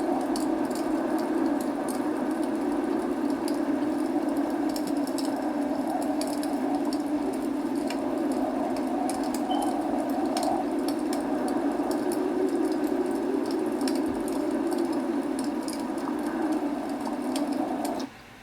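Log fire crackling, with many small sharp pops over a steady low rushing noise; it cuts off suddenly just before the end.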